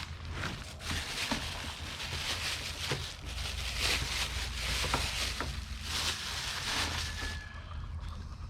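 Rustling with scattered light knocks and clicks of items being handled and rummaged through in a box.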